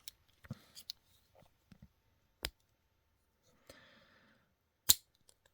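Scattered sharp metal clicks from a Turboknife X multitool being handled and its implements moved, with two louder clicks about two and a half and five seconds in and a brief soft rustle between them.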